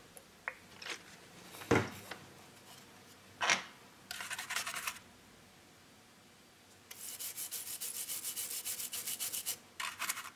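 A small brush wet with isopropanol scrubbing a printed circuit board in rapid back-and-forth strokes, briefly and then steadily for the last few seconds. Before that come a few knocks and clicks, the loudest about two seconds in.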